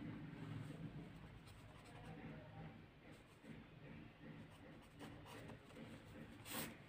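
Blue ballpoint pen writing on paper: faint scratching strokes, with a brief louder scratch near the end.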